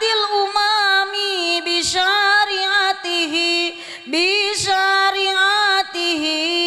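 A woman singing an Arabic devotional chant (sholawat) solo into a microphone, without any instruments. She holds long, ornamented notes, and short breaths break the phrases about 2 and 4 seconds in.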